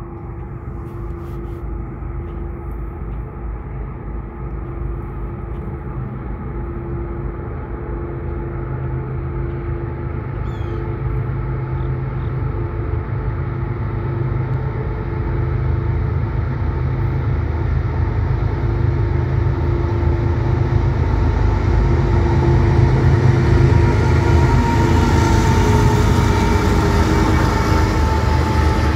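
Freight train approaching and passing: a low rumble that grows steadily louder, loudest in the second half as the locomotives and then boxcars roll by on the rails.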